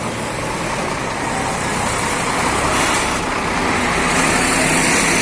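Scania heavy truck's diesel engine running under way, with road noise, growing slowly louder.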